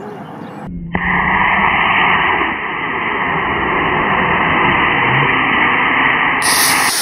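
Solid-fuel model rocket motor igniting with a sudden onset about a second in, then a loud, steady rushing hiss of its thrust lasting about six seconds. The sound is dull, with no high treble.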